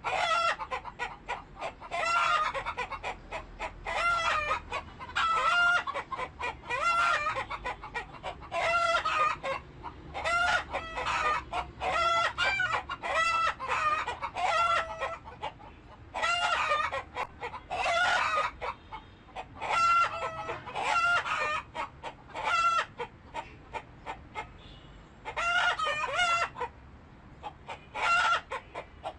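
Chickens calling: loud clucking and cackling calls, one after another about once a second, with a few short pauses.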